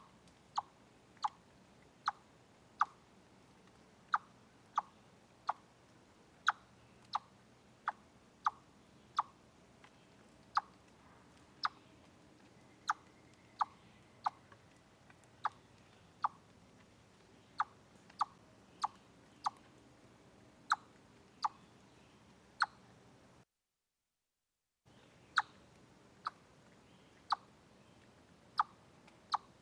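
Chipmunk giving its repeated sharp 'chip' call, about one chip every two-thirds of a second with a few short pauses. The sound cuts out completely for about a second some two-thirds of the way through.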